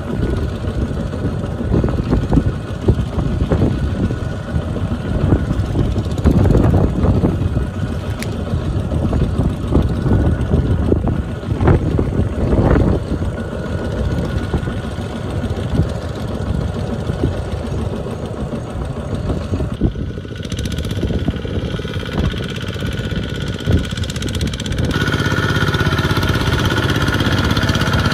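Two-wheel walking tractor's single-cylinder diesel engine chugging under load as it hauls a trailer of rice sacks through deep mud. Near the end the engine is louder and steadier.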